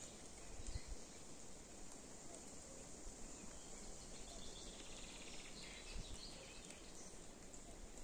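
Faint outdoor ambience in a spring forest: a steady soft hiss, with faint bird calls in the middle.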